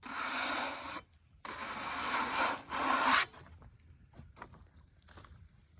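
Freshly sawn black cherry board being slid off the log, wood scraping on wood in two long rubs, the second longer and louder, then a few faint knocks.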